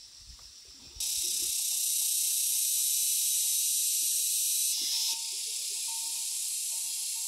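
Steady high-pitched drone of an insect chorus, starting abruptly about a second in and dropping a little in level about five seconds in.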